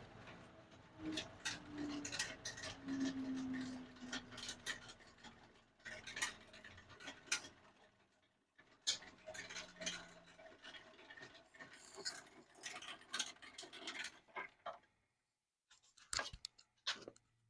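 Grizzly jointer-planer's cutterhead coasting down after switch-off, a faint hum falling slowly in pitch over the first several seconds, among scattered light clicks, knocks and scrapes of a board and the machine being handled.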